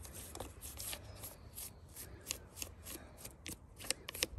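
Brush scrubbing at oily, stubborn dirt on a chainsaw: short scratchy strokes, unevenly spaced at about two or three a second.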